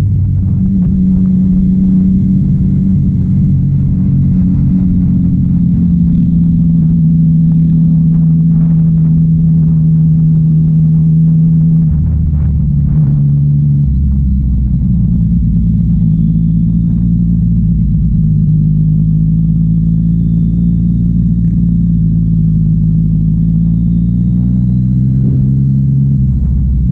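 Sport motorcycle engine running steadily at cruising revs, heard from the rider's seat. The engine note steps down about twelve seconds in, changes again two seconds later, and shifts once more near the end.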